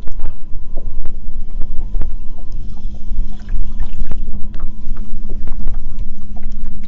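Wind rumbling on the microphone aboard a small fishing boat, over a steady low hum, with scattered light clicks and knocks.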